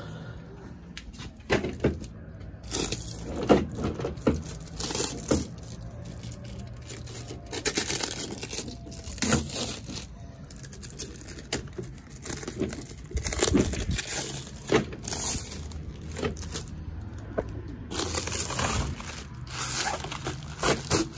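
Plastic wrapping on a new clear headlight assembly crinkling and tearing in irregular bursts as it is handled and unwrapped, with occasional knocks of the plastic housing.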